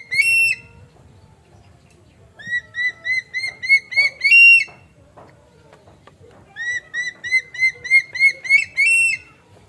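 A bird calling: one clear note at the start, then two runs of quick, ringing upslurred notes, each run speeding up a little and ending in a longer, louder, higher note.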